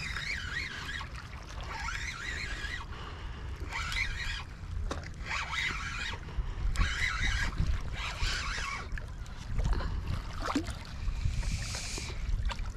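Wind rumbling on the microphone, with water sloshing and washing in short surges about every second or so.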